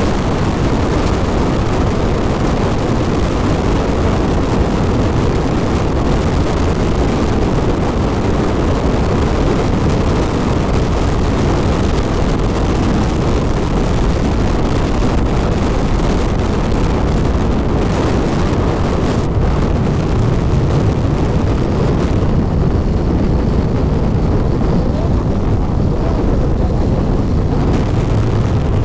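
Hero XPulse 200 motorcycle riding at a steady speed: a loud, constant rush of wind over the microphone with the single-cylinder engine's drone underneath. The high hiss eases a little about three-quarters of the way through.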